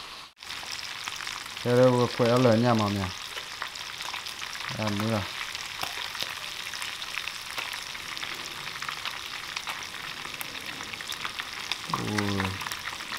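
Whole fish deep-frying in hot oil in a pan: a steady sizzle full of small crackles, starting suddenly just after the opening moment.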